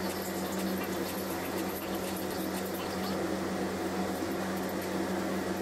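A steady machine hum with a faint hiss.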